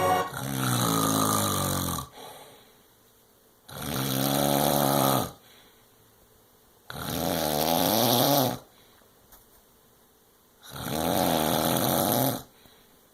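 Snoring: four long snores, each a second and a half to two seconds with a wavering pitch, about three seconds apart, with near quiet between breaths.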